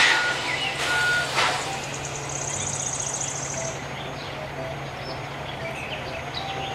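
Car-carrier semi truck's engine running with a steady low drone as it drives past. Two short bursts of noise come in the first second and a half, and a brief high rattle follows in the middle.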